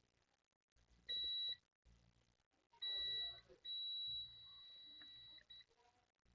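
Multimeter continuity tester beeping three times, a short beep about a second in and then two longer ones, the last getting quieter partway through. Each beep marks the probes touching two points that are electrically connected.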